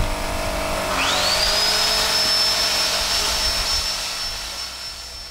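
Ryobi electric miter saw's motor spinning up about a second in and then running free with a steady high whine, fading near the end.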